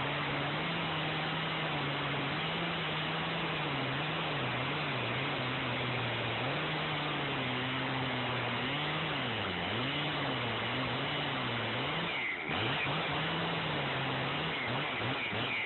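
Large two-stroke gas chainsaw cutting through a big log: the engine runs steadily under load, its pitch wavering and sagging as the bar works in the cut. About twelve seconds in it drops out briefly, then revs in quick rises and falls.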